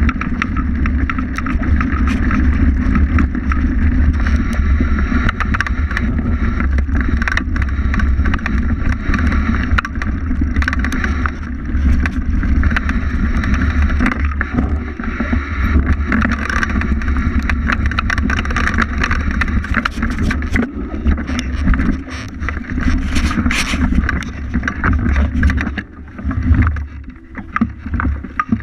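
Fatbike riding down a forest dirt trail: the wide tyres rumbling over dirt and leaves, with frequent rattles and knocks from the bike over bumps and wind buffeting the bike-mounted camera's microphone. The noise eases a little near the end.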